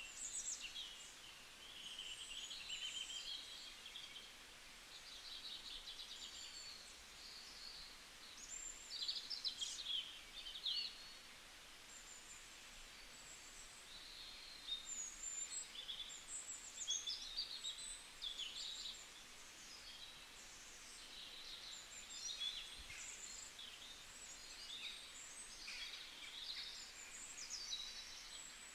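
Several small birds chirping and twittering: short, high calls in quick, overlapping runs over a faint hiss.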